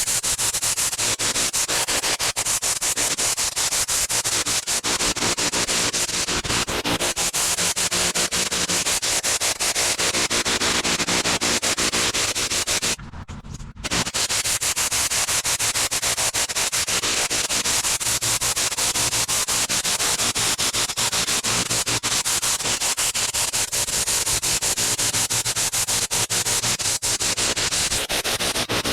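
Pressure washer running at full pressure: a steady engine hum under a loud, hissing spray on concrete. The sound breaks off for about a second roughly halfway through, then carries on the same.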